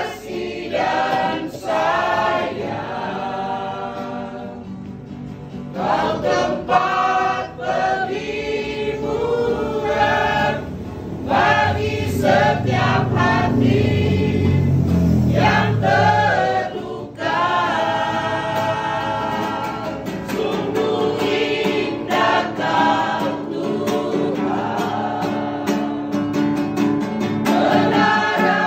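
A small group of women singing a Christian praise song together, several voices on one melody.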